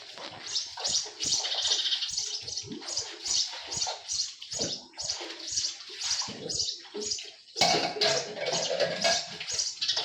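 Water splashing in uneven, irregular surges.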